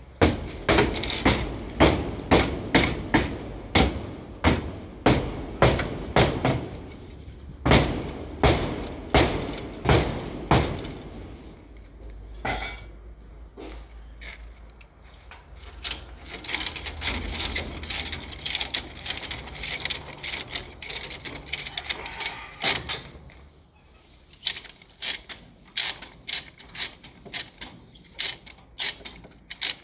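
Lever chain hoist ratcheting as the chain is tightened to pull out the crushed rear corner of a car body. It gives sharp clicks about two a second, with a denser stretch of rattling in the middle.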